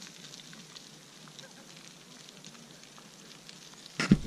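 Rockfall in a mountain couloir: a faint, continuous crackle of small stones clattering down the scree, with scattered sharper clicks. About four seconds in, a sudden loud, low noise breaks in.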